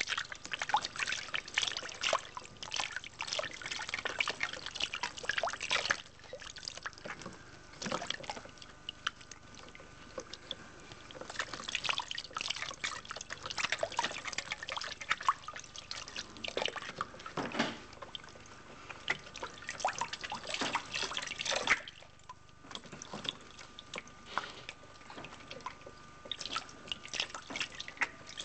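Water trickling from a funnel and dripping and splashing into a plastic tray as a water-driven kinetic sculpture turns. There are dense spells of quick drips with two quieter lulls.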